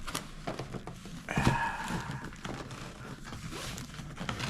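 Packaging being handled as new boots are unwrapped: rustling and crinkling with small knocks, and a short scraping, tearing noise about a second and a half in.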